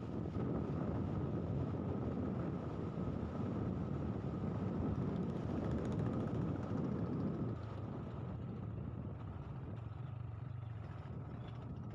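A vehicle running along the road: a steady engine and road rumble that becomes quieter about two-thirds of the way through.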